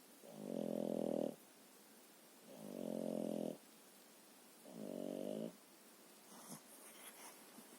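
French bulldog snoring: three pitched snores about two seconds apart, each swelling for about a second and then stopping abruptly.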